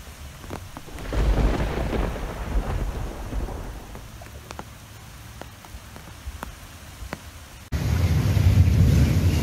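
Thunderstorm: a deep rumble of thunder swells about a second in and fades over a few seconds, over a steady hiss of rain with scattered drops. Near the end it cuts abruptly to loud surf and wind on the microphone as storm waves surge over a beach.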